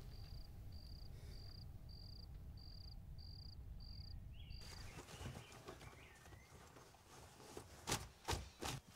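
Cricket chirping, one short high chirp repeated a little under twice a second, cutting off suddenly a little over halfway through. Near the end, three footsteps of leather boots on a hard floor.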